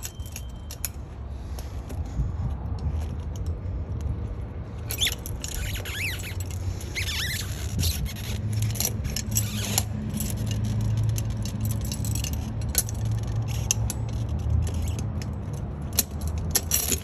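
Steel tire-chain links clinking and scraping against each other and a lever tool as the side chain of a tractor tire chain is pulled tight to hook on a spring tensioner. The clinks come thick from about five seconds in, with a few short squeaks, over a steady low rumble.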